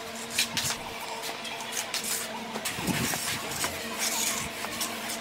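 A steel trowel scraping and tapping wet cement mortar against a concrete lintel in short strokes, over a steady low mechanical hum.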